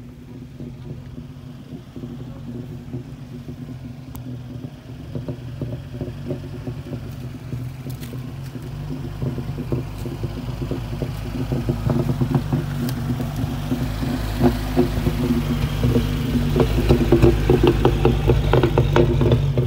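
Toyota pickup's engine running steadily at low speed as the truck crawls over a rough dirt trail, growing louder as it comes close. In the second half, rapid crackling and crunching from the tyres rolling over dirt, rocks and sticks joins the engine note.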